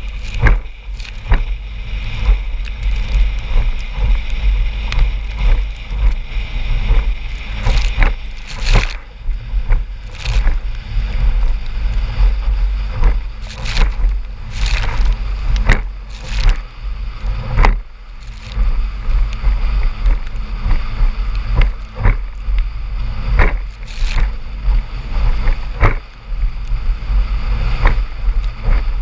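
Small boat running fast across wind-chopped water: a steady deep rumble broken by irregular sharp slaps of the hull hitting the waves, every second or two.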